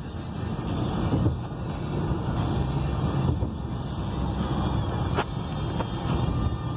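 Steady road and engine noise heard from inside a vehicle travelling at highway speed, with a faint click about five seconds in.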